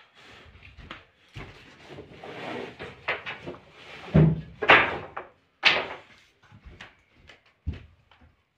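Knocks and bangs on wood, with a few loud sharp ones about four to six seconds in and a fainter one near the end, among rustling and shuffling.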